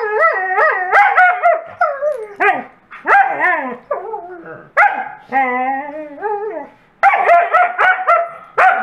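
Two wolfdogs playing and 'talking' at each other: warbling, wavering howl-like calls that go up and down in quick runs, with a few sharp barks in the second half. It is excited, happy play vocalizing rather than aggression.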